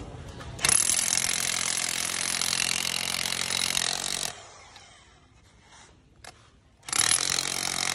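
Fullboar 17 mm, 1050 W electric demolition hammer chiselling concrete: a run of about three and a half seconds starting just under a second in, a pause, then running again near the end.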